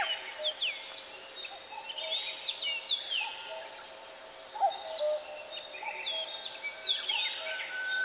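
Several small songbirds chirping and calling, with many quick downward-sweeping notes overlapping each other, over a faint steady low tone.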